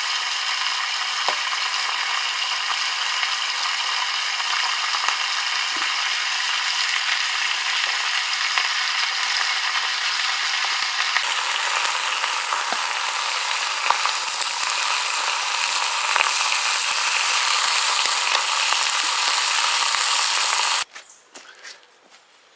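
Water boiling hard in the Frontier stove's flue-mounted water heater: a steady hissing, sizzling rattle that grows brighter about halfway and cuts off abruptly near the end.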